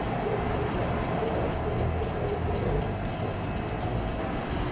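Steady running noise of machinery: a low rumble with a steady mid-pitched whine and hum, unchanging throughout.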